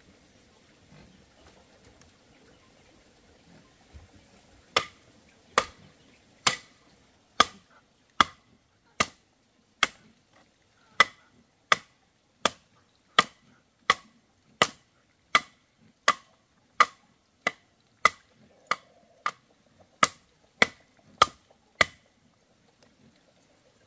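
A steady series of about two dozen sharp hand-tool strikes, a little faster than one a second, each with a short ring. The strikes start about five seconds in and stop shortly before the end, consistent with chopping or nailing timber while rebuilding a pig pen.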